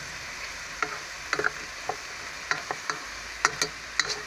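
Chicken pieces and sliced onion sizzling steadily in a frying pan. From about a second in, a utensil knocks and scrapes against the pan in a dozen or so short, irregular clicks as the food is stirred and turned.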